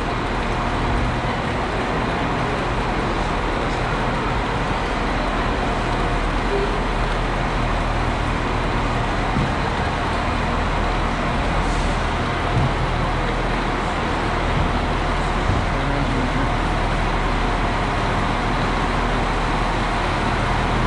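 Steady drone of diesel passenger trains idling at a station platform, with a constant low engine hum.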